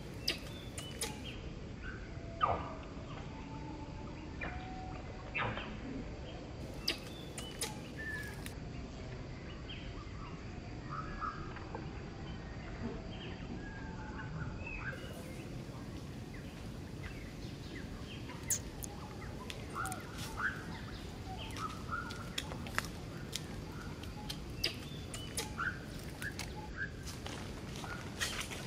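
Outdoor ambience: a steady low background noise with many short, scattered chirps and calls, and sharp clicks that come more often in the second half.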